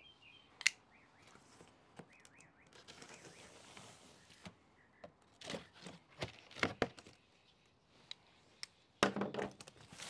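Unboxing sounds: packaging and parts being handled, with a few sharp clicks and knocks and a soft rustle around the middle.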